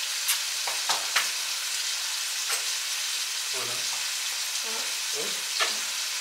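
Food frying in a pan on a gas hob: a steady sizzling hiss with scattered crackles and pops.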